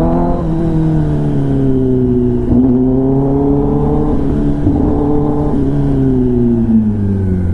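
Kawasaki ZX-10R's inline-four engine through an SC-Project titanium exhaust, running under way: the revs ease off, dip sharply about two and a half seconds in, climb again, then fall away steadily.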